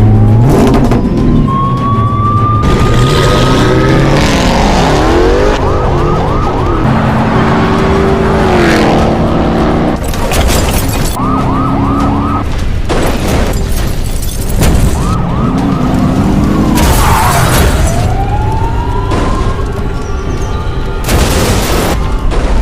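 Police car sirens wailing and yelping over car engines, with several sudden loud bangs like crashes through the stretch.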